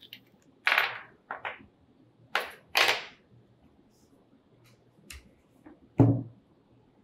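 Metal limb bolt, washer and Allen key clinking and clattering onto a tabletop as they are taken off a takedown recurve bow riser: a few short, sharp clatters in the first three seconds. A single low, dull thump follows about six seconds in as the riser is handled on the table.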